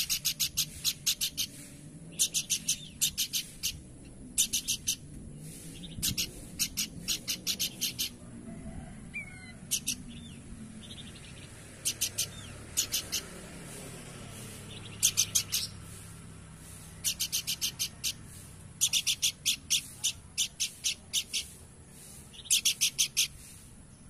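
Pelanduk semak babbler singing in repeated bursts of rapid, sharp high notes, each burst about a second long and separated by short pauses.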